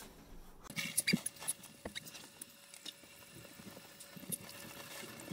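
Shower running: a faint hiss of spray with irregular splashes and taps.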